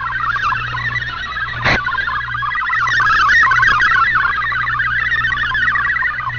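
Shortwave radio receiving a multi-tone digital data transmission (MFSK family), a fast stream of warbling tones over hiss and a low hum. A single static crackle comes about a second and a half in.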